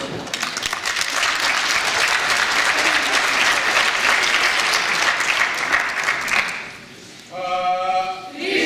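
Audience applauding, a dense crackle of many hands clapping that dies away about six and a half seconds in. A brief held tone follows near the end.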